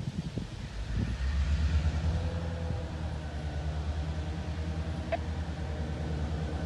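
EMD GP38-2 diesel-electric locomotive's 16-cylinder two-stroke engine running as it approaches, pulling a single car: a low, steady, pulsing hum that comes in about a second in and holds.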